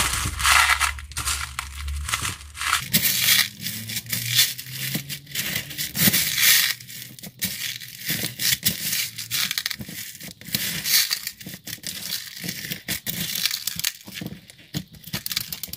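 White slime being squeezed and kneaded by hand with plastic pearls and small beads worked into it: a continuous, irregular crunching and crackling as the beads click and pop inside the slime, typical of a crunchy bead slime.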